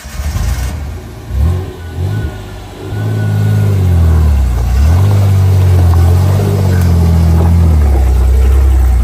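Off-road truck's engine revving under load, its pitch rising and falling a few times, then held at steady high revs from about three seconds in.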